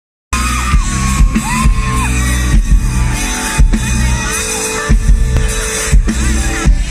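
Live band playing an R&B song, amplified through a PA: drum kit keeping a steady beat under electric guitars, keyboard and a gliding melody line. It cuts in abruptly just after the start.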